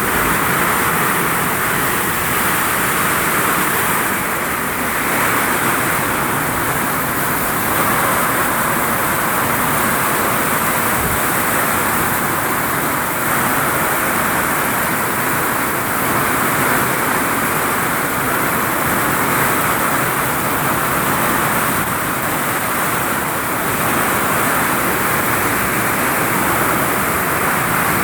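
Heavy rain pouring onto a vinyl roof: a loud, dense, steady hiss that swells and eases a little every few seconds.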